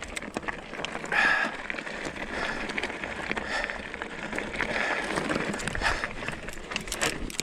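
Hardtail mountain bike rolling over a rocky trail: tyres crunching over loose rock, with the bike clattering and knocking as it hits stones.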